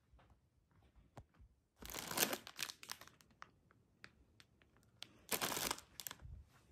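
Plastic instant-ramen packets crinkling as they are handled. The crinkling comes in two bursts, about two seconds in and again about five seconds in, with small clicks and rustles between.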